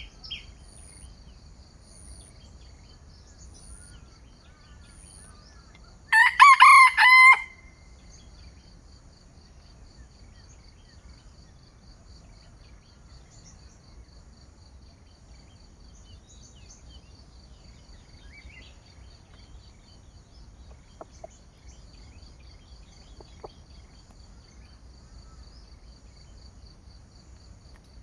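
A rooster crows once, close and loud, a short crow of just over a second, over the steady rapid chirring of insects.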